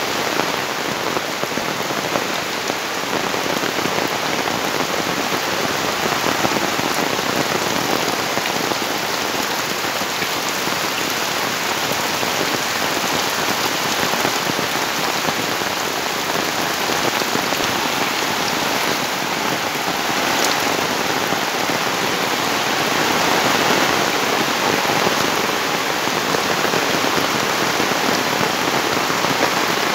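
Steady heavy rain falling and pattering on surfaces, an even continuous hiss.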